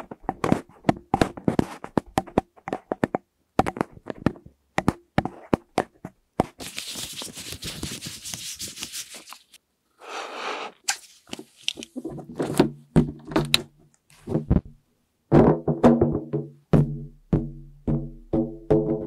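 Elbows tapping on the microphone in quick, irregular knocks. A latex balloon is then blown up with long breaths into it, and from about twelve seconds in the inflated balloon squeaks in repeated pitched squeals as fingers rub its skin.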